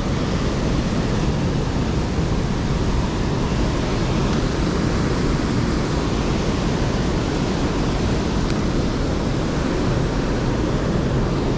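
Heavy surf from a 6–8 ft swell breaking on a rocky shore: a steady, unbroken rush of waves and whitewater, with no single wave or impact standing out.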